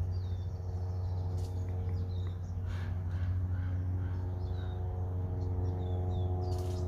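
Birds chirping faintly and briefly, again and again, over a steady low hum.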